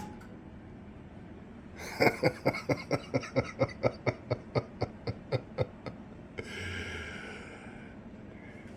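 The running hum of a microwave powered from a Bluetti EB70S power station cuts out at the very start: the power station shuts down, overloaded by the roughly 1200 W microwave. About two seconds later a man laughs in a quick run of ha-has for nearly four seconds.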